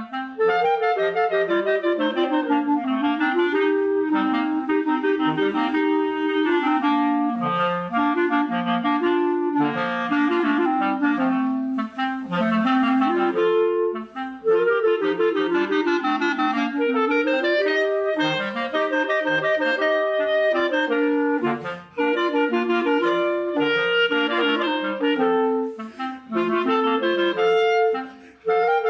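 Two clarinets playing a son as a duet, the two melodic lines moving together in a quick, lively tune.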